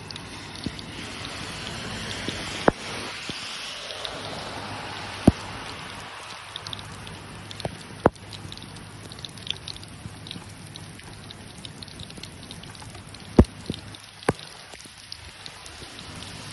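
Heavy rain falling on a wet asphalt road as a steady hiss that swells over the first few seconds and then eases, with several sharp ticks of drops striking close to the phone.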